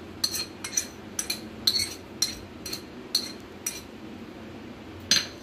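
Metal knife clinking and scraping against a china plate as chopped onion is pushed off it into a steel bowl: a run of light clinks about two a second, with a louder clink near the end.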